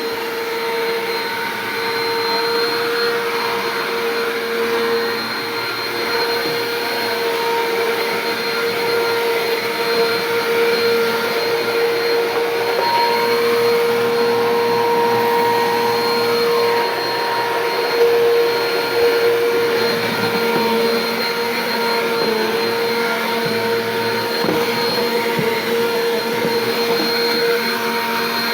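Bissell PowerForce Compact upright vacuum cleaner running continuously, its motor giving a steady whine with the loudness wavering slightly.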